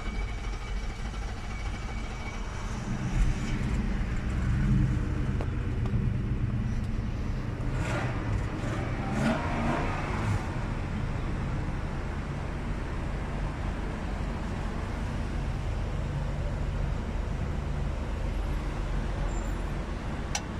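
Nissan Patrol engine running after being started, with a brief rise in revs about four seconds in.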